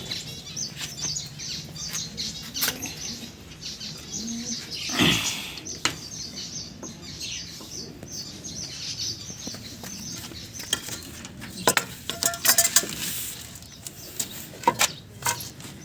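Small cage finches chirping almost without a break, mixed with wing flaps and sharp clicks and knocks. A louder rustle of wings comes about a third of the way in, and a cluster of loud clicks and rattles about three-quarters through.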